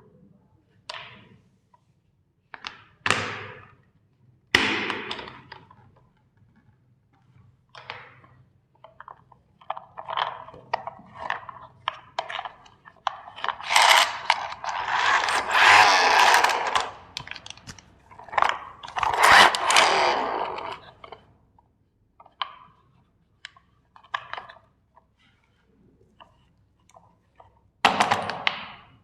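Plastic toy steam engine trains being crushed: a string of sharp cracks and crunches of breaking plastic. The crunching is densest and loudest in the middle stretch, with scattered snaps after it and another loud crack near the end.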